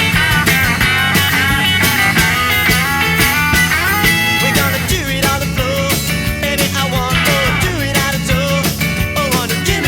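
Background rock music with a steady beat, guitars and a bending lead line that sounds like a voice or lead guitar.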